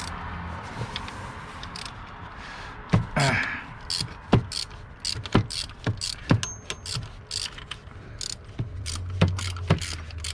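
Hand socket ratchet and metal tools clicking and knocking irregularly while undoing alternator mounting bolts, over a low steady hum.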